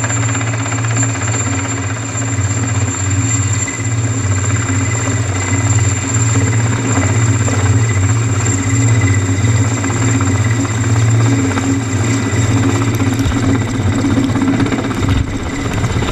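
Mi-8 helicopter's main rotor and twin turboshaft engines, running loud and steady as it comes in low to land close by.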